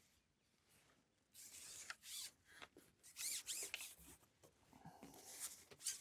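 Carbon fishing pole sliding and rubbing over a pole rest, in a series of short scraping strokes starting about a second and a half in.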